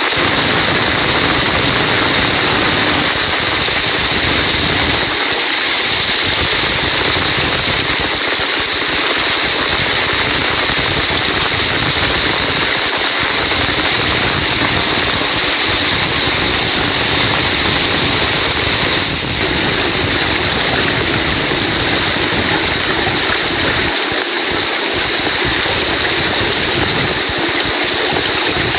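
Heavy rain pouring steadily, an even dense hiss with no letup.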